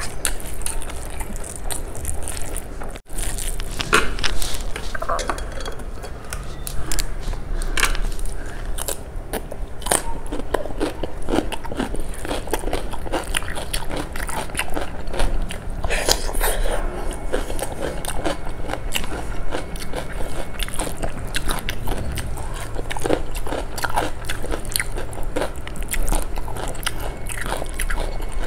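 Close-miked eating by hand: chewing, lip smacks and swallowing of kadi-soaked rice and pakoras, with the squish of fingers mixing rice on a steel plate.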